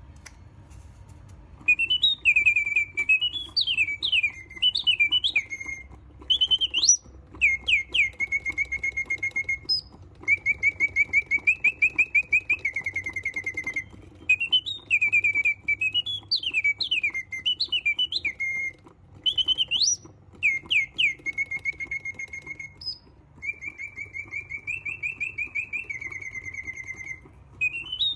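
German-made mechanical singing bird whistling a song of rising slides and long rapid trills. The song starts a couple of seconds in and repeats almost identically about every 13 seconds, with a faint low hum from the mechanism underneath.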